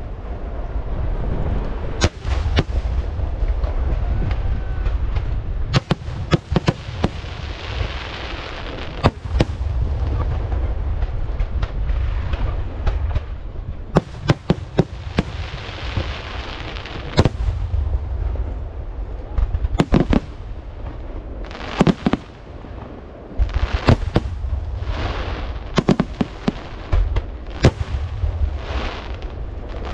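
Fireworks display: aerial shells bursting in a rapid, irregular run of sharp bangs, with stretches of hissing crackle between them.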